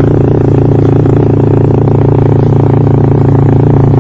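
Motorcycle engine running steadily at high, constant revs, loud and droning with a slight rattle.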